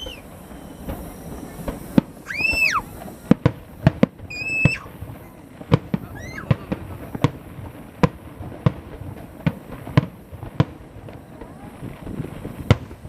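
Fireworks display: aerial shells bursting in a rapid, irregular series of sharp bangs and pops of varying loudness, with a few short high-pitched whistles among them.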